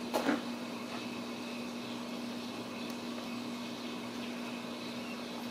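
Steady background hum and hiss of room noise, with one brief short sound just after the start.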